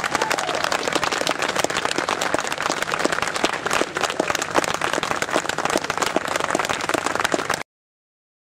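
Audience applauding: dense, steady clapping that cuts off suddenly near the end.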